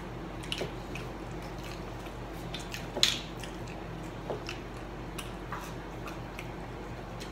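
Eating sounds: chewing and scattered small clicks from handling nuggets and plastic sauce cups, over a steady low room hum. A sharper click comes about three seconds in.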